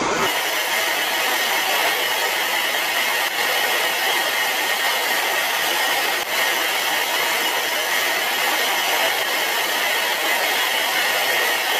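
Steady, even rushing noise of jet aircraft in flight, with a faint constant whine in the middle range and no deep rumble.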